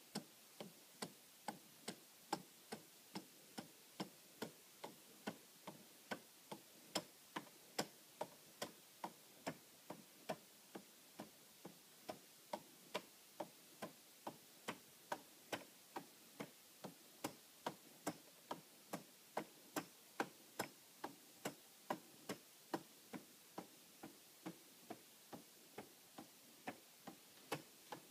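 Cardboard escapement clock ticking steadily, light sharp clicks at about two a second as the escapement lets the cardboard gear train advance.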